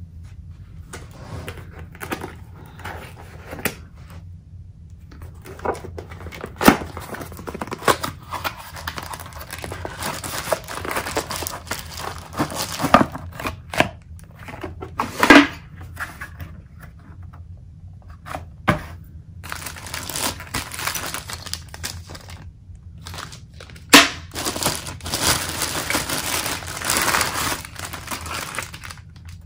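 Plastic packaging bag crinkling and rustling as a metal mounting bracket is unwrapped by hand, with cardboard box handling and a few sharp knocks along the way.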